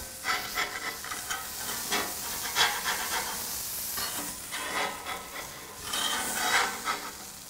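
Smashed ground-beef patty sizzling on a hot flat-top griddle, while a metal spatula scrapes across the steel under its edge in a series of short strokes to free it for flipping.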